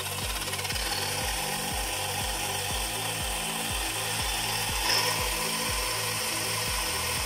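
XLF X03 RC car's brushless motor spinning the drivetrain and wheels in the air under power, a steady mechanical whir with an even rhythmic pulse a little over twice a second. It is the drivetrain being tested with a newly refitted metal dog bone.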